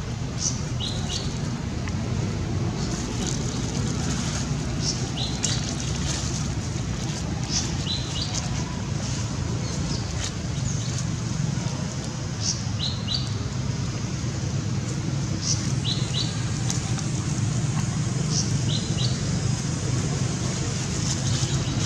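A small bird chirping in short, quick, often doubled notes every second or two, over a steady low rumble.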